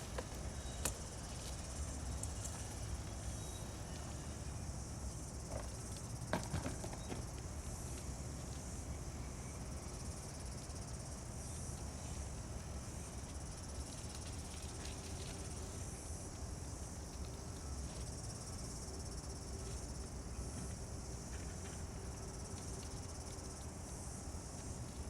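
Steady high-pitched insect chorus, with a low steady rumble underneath and a couple of faint clicks about a second and six seconds in.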